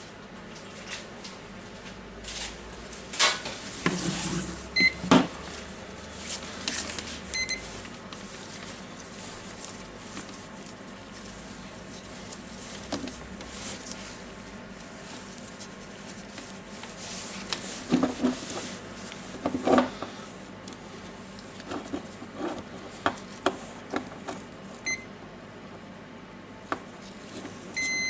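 Clicks and knocks from handling the opened nut gun and test probes, with a few short high beeps from a multimeter's continuity tester as the trigger switch is pressed, a sign that the switch conducts. More beeps start just at the end.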